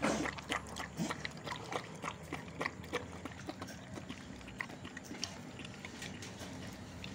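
A dog eating noodles and broth from a plastic bowl: a quick run of mouth clicks and smacks, several a second, loudest in the first three seconds.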